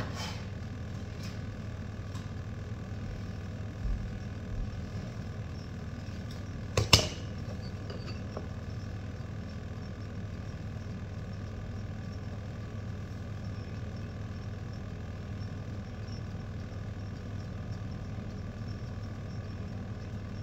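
Steady low hum of a running kitchen appliance, with a few light clicks near the start and a sharp, loud clack about seven seconds in.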